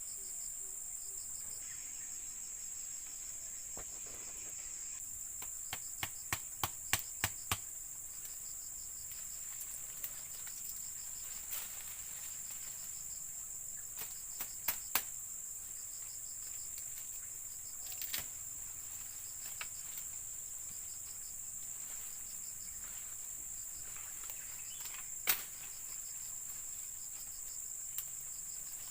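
Steady, high-pitched chorus of crickets, with scattered sharp clicks and knocks over it: a quick run of about seven some six seconds in, a few more through the middle, and a single louder knock near the end.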